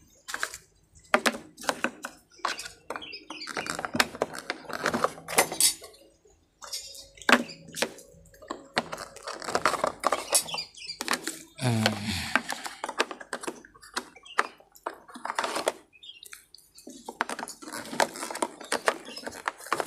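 Small clear plastic drawers of a 25-drawer parts cabinet being handled and slid into the rack: a run of irregular light plastic clicks and knocks.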